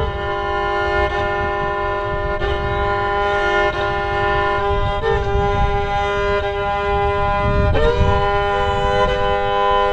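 Solo fiddle playing a slow Scottish air in a bagpipe style, long held melody notes over a steady drone note, a wee bit out of tune.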